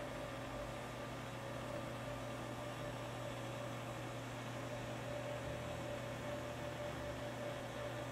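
Steady room tone: an even hiss with a low hum and a faint thin steady tone, with no distinct event.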